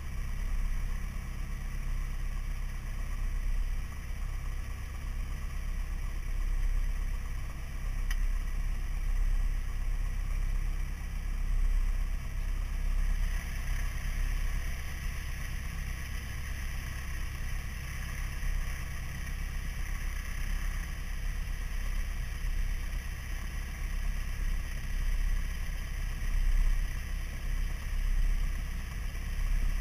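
A single-engine light airplane's piston engine and propeller running at low idle while taxiing, heard inside the cabin, with a steady low rumble and shaky buffeting from the headrest-mounted camera. The cabin noise grows a little brighter about halfway through.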